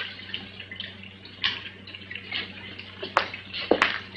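Soft liquid bubbling and dripping from laboratory apparatus, with a few sharp clicks in the second half, over a steady low hum.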